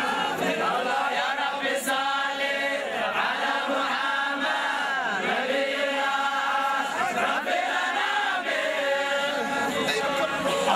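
A crowd of men chanting together in unison, a devotional chant sung while marching in a Sufi Mawlid procession, the voices rising and falling in pitch.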